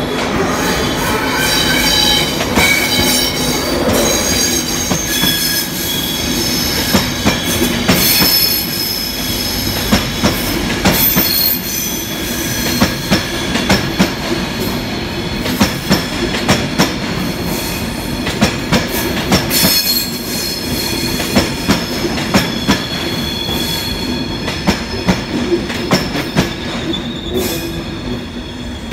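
LNER InterCity 225 train passing, its Mark 4 coaches led by driving van trailer 82205: the wheels squeal high and shrill in the first half. From about seven seconds in, the wheels clack over rail joints in regular pairs.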